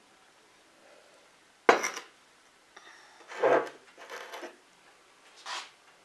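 Glass dessert mugs being handled: one sharp knock about two seconds in as a mug is set down on a hard surface, then a few shorter scraping and clinking handling sounds.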